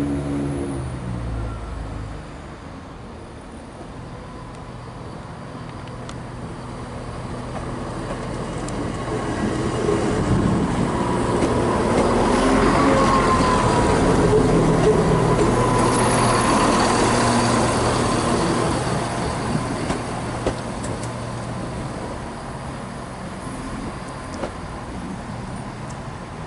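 Diesel multiple-unit trains moving through a station. An engine note drops away at the start, then a train passes close by, loudest midway with a high whine. A Class 170 diesel unit is drawing in near the end.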